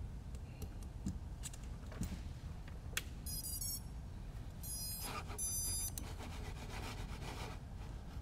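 Sharp clicks of small plastic XT60 power connectors being joined and handled. About three seconds in, three short groups of high electronic beeps follow, stepping in pitch: typical of a quadcopter's ESC startup tones played through its brushless motors when power is connected. Soft rustling of hands on the bench mat follows.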